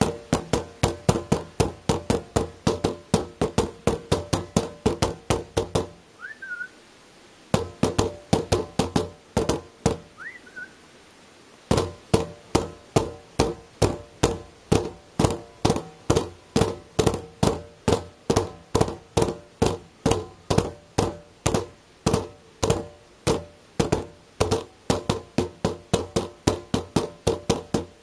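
Nunchaku beating green plastic bins as drums, a fast, even run of knocks at about three or four a second. The strikes stop about six seconds in, come sparsely for a few seconds, then pick up again into a steady fast beat from about twelve seconds on.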